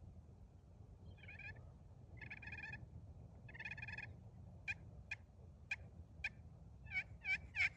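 Titanium-surface turkey pot call worked with a laminate striker, imitating a hen. It plays three soft, drawn-out purring notes, then four short sharp clucks, and near the end starts a quickening run of yelps that break from high to low.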